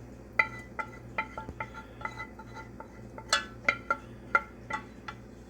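A spoon scraping and clinking against a saucepan while the last of the cooked pudding is cleared from it. There are about a dozen irregular ringing clinks, the loudest near the start and a little past the middle.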